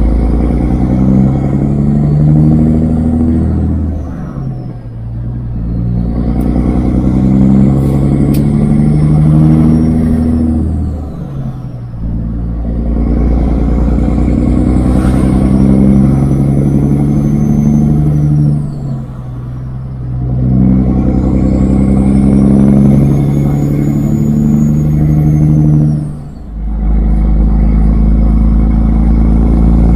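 Kenworth W900 semi-truck's diesel engine pulling up through the gears. The engine climbs in pitch, then drops off briefly for a shift about every seven seconds, four times in all. A turbo whistle rises with each pull and falls away at each shift.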